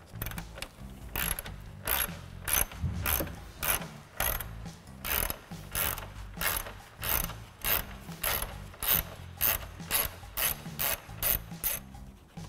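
Hand ratchet turning a 10 mm socket to loosen bolts: a steady run of ratcheting clicks, about two strokes a second.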